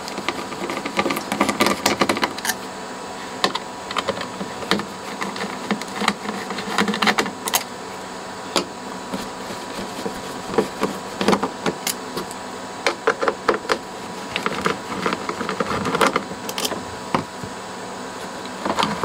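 A screwdriver backing out the screws that hold a metal effects-module panel in a mixer amp: short scraping, squeaking turns and small metal clicks, over a steady low hum. Near the end the loosened panel is handled and lifted with a few knocks.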